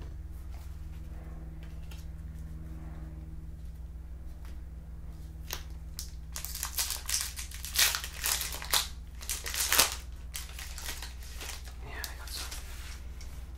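Crinkling and rustling of a foil trading-card pack wrapper being handled and torn open, in a run of sharp crackles from about five to ten seconds in.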